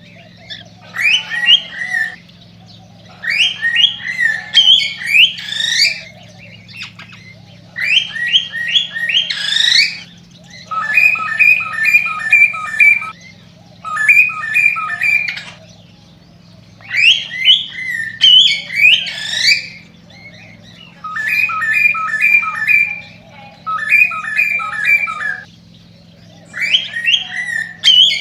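Male cockatiel singing its excited breeding song: short phrases of chirping, whistled notes that slide up and down, some phrases made of quick runs of repeated notes, each followed by a pause of about a second. A steady low hum runs underneath.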